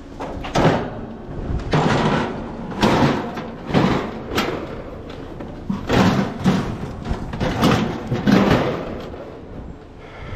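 Scrap on a trailer thudding and clanking, about eight heavy knocks spread through the stretch, each ringing briefly.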